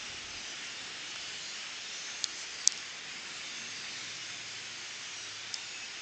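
A distant flock of migrating birds calling in the treetops, many calls blending into a steady high hiss. A few sharper high call notes stand out, two a little past two seconds in and one near the end.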